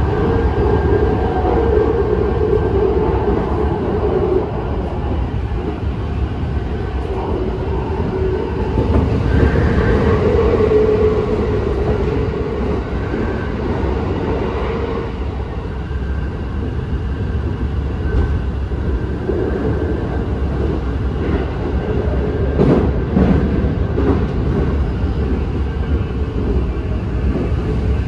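Keikyu 1000 series electric train with a Mitsubishi full-SiC VVVF traction system running at speed, heard from inside the car: a steady rumble of wheels and running gear, with a short cluster of clacks over rail joints near the end.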